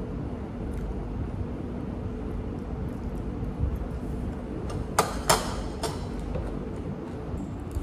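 A few sharp clinks of utensils against a dish during a meal, about five seconds in, over a steady low room hum.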